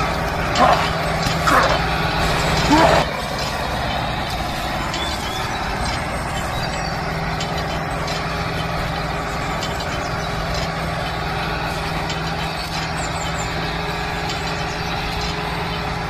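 Homemade mini tractor's motor running steadily under load: an even mechanical hum with a constant low tone that holds without change.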